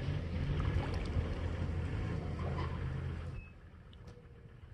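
Distant pickup truck engine running hard as the truck is rocked back and forth to get out of deep mud, easing off sharply about three and a half seconds in.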